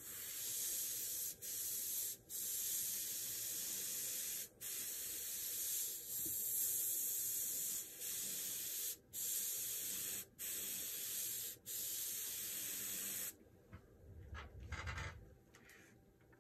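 Airbrush spraying paint in a steady high hiss, cut by about eight short gaps as the trigger is let off, then stopping for good about 13 seconds in. A brief low handling noise follows.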